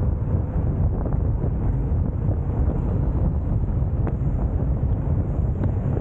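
Wind buffeting the microphone of a camera moving at riding speed on an electric scooter: a steady low rumble.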